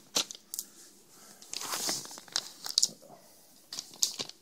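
Crinkling and clicking of a catnip package being worked at to open it, in short scattered bursts.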